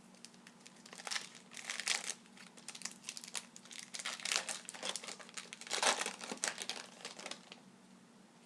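Plastic wrapper of a hockey card pack crinkling in irregular bursts as it is torn open and handled, dying away near the end.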